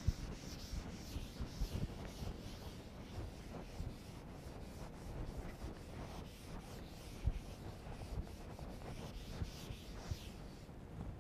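Blackboard duster wiped back and forth across a chalkboard, erasing chalk writing: a run of soft rubbing swishes.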